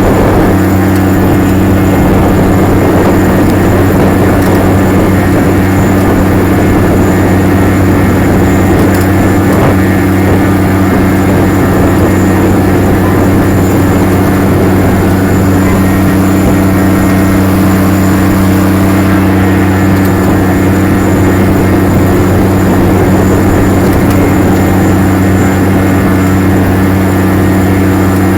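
Case IH STX 535 Quadtrac's big six-cylinder diesel running steadily under load while ploughing, a constant deep drone with no change in pitch.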